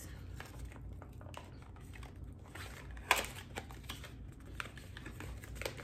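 Paper gift wrapping crinkling and tearing as a small wrapped gift is opened by hand. One louder, sharper rustle comes about three seconds in.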